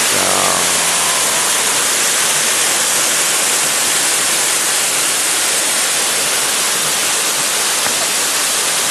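Waterfall: loud, steady rushing of falling water, with no break or change.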